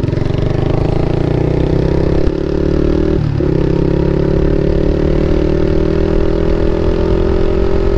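Motorcycle with an Akrapovic aftermarket exhaust running under acceleration. Its pitch climbs slowly and breaks briefly about three seconds in at a gear change, then climbs again.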